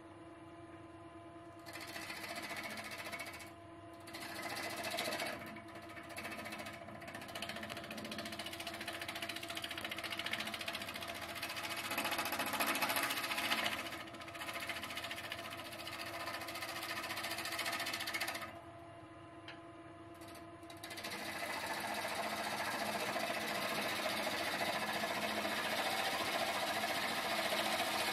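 Wood lathe motor humming steadily while a gouge cuts into a spinning stone pine blank, roughing it down to round. The cutting comes in rough, hissing passes from about two seconds in, stops briefly twice, and runs on without a break over the last third.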